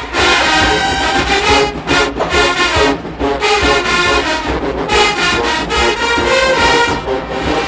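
HBCU marching band playing loud, brass-heavy music, with brief breaks between phrases about two and three seconds in.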